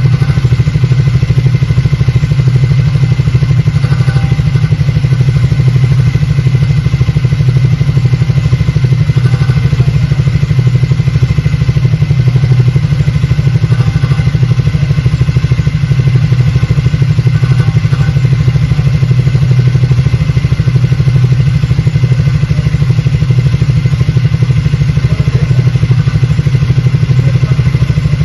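Triumph Speed 400's single-cylinder engine running steadily, with the abnormal noise from its silencer (exhaust muffler). It is a known fault that is often mistaken for engine noise and is cured by replacing the silencer.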